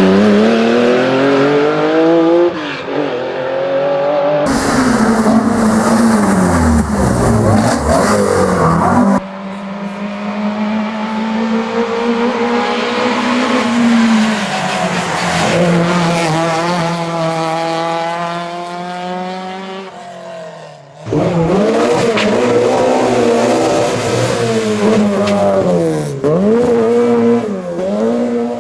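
Historic racing car engines revving hard through the gears in several short clips. The pitch climbs and drops sharply at each gear change, with further lifts and shifts near the end.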